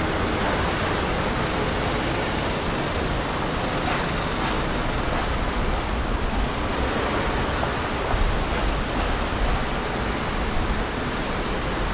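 Steady city-street traffic noise: a continuous wash of passing road vehicles with a strong low rumble.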